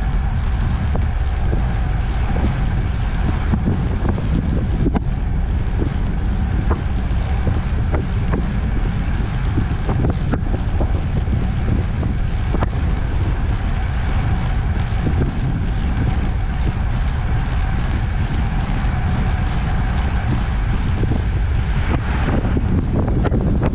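Wind buffeting the microphone and rolling noise while riding an ICE Sprint X 26 recumbent trike along a road, with a faint steady whine running under it. An oncoming car swishes past near the end.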